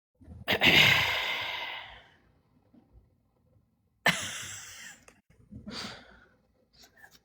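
A person sighing heavily, close to the microphone: one long, breathy sigh that starts about half a second in and trails off, then a shorter exhale about four seconds in and a smaller breath near six seconds.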